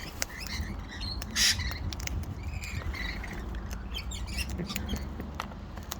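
Cockatoo's beak nibbling and clicking up close, in an irregular scatter of small sharp clicks, with one short harsh rasp about a second and a half in.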